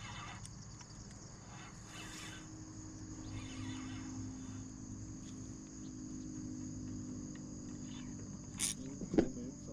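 Steady high-pitched insect chorus, with a faint low hum through the middle and a single sharp click near the end.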